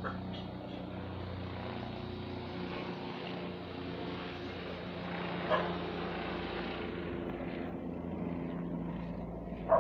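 Bell 407 helicopter's turboshaft engine and rotor running steadily, a constant hum with several held tones. A brief sharp sound cuts in about five and a half seconds in.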